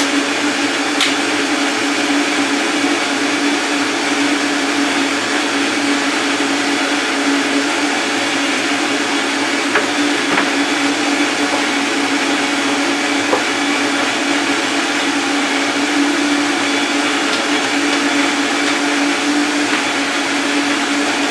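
Vitamix high-power blender running steadily with a full jar of frozen fruit and juice: a loud, even whir with a constant hum, like a jet engine, its pitch unchanging. A few faint ticks from counter-top items sit under it.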